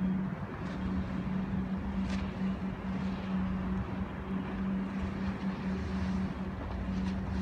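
Diesel engines of a 1963 Woolwich ferry running steadily, heard as a constant low drone over a rumble. The engines are 7-cylinder Mirrlees National diesels driving Voith-Schneider cycloidal propellers.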